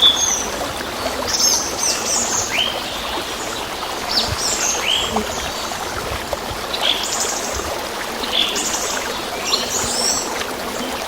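Small birds chirping in short, quick, curved notes every second or so, over a steady rushing hiss like running water.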